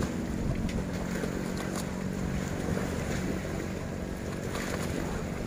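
Wind buffeting the microphone over open harbour water, with a steady low engine hum underneath.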